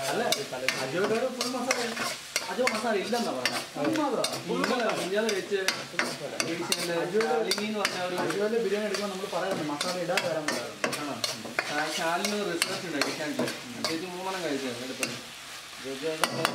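A spatula stirring and scraping a thick vegetable curry around a large black wok, in repeated strokes with frequent clacks of the spatula against the pan.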